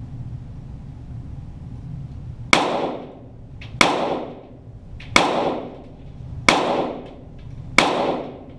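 Five .22 Walther GSP target pistol shots fired at an even pace about 1.3 seconds apart, starting a little over two seconds in, each with a reverberant tail, heard from downrange near the targets.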